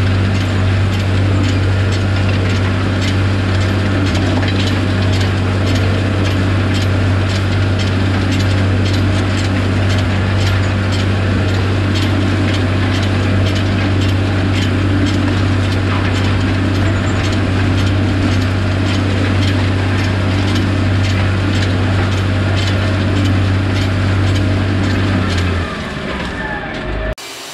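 Tractor-drawn zone builder (subsoiler shank and rolling basket) ripping through thick wheat cover-crop residue: a steady low drone of the tractor and implement under dense crackling and clicking of straw and soil against the steel. The low drone fades near the end.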